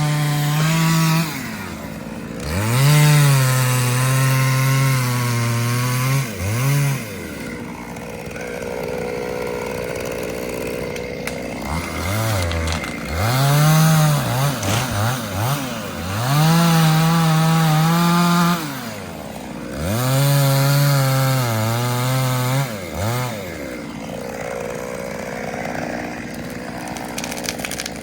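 Two-stroke chainsaw cutting wood in repeated bursts. It revs up to full throttle and holds for one to three seconds, about six times, then drops back to idle in between.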